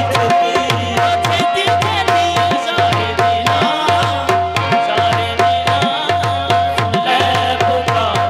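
Qawwali music: tabla playing a steady, quick rhythm of about three to four strokes a second under a long held harmonium note.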